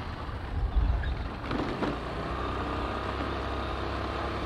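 A two-wheeler's engine running steadily while riding along a road, under a heavy low rumble of wind on the microphone. There is a brief uneven patch about a second and a half in, then the engine note holds steady.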